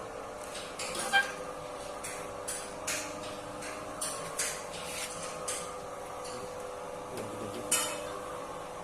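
Mini serundeng cooking machine running: a steady motor hum under irregular scrapes and metallic clinks from the stirring in its metal pan. The sharpest clink comes about a second in and another near the end.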